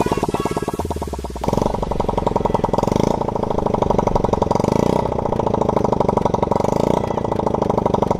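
Small 50cc engine of a homemade kart running, a fast even firing note that steps up louder about a second and a half in and shifts every couple of seconds after that.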